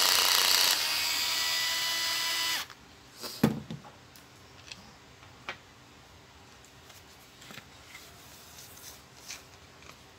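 Bosch Go cordless screwdriver running as it backs a screw out of an angle grinder's housing, a steady whine that stops sharply after about two and a half seconds. A loud thump follows about a second later, then faint light clicks.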